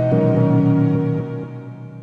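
Slowed, dreamy playlist music: a sustained chord that shifts just after the start, then fades out over the last second.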